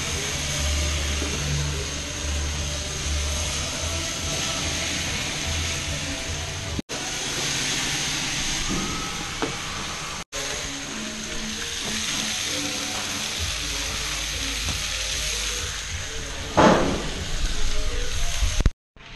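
Food sizzling and hissing on a barbecue grill, under background music with a stepped bass line. Loud bumps and knocks come about three seconds from the end.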